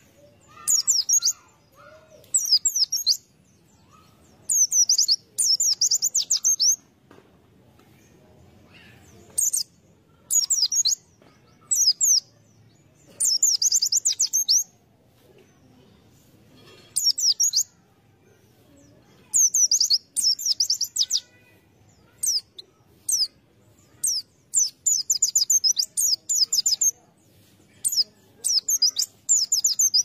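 White-eye (pleci) singing: about a dozen short phrases of rapid, high-pitched twittering, some lasting a second or two, separated by brief pauses.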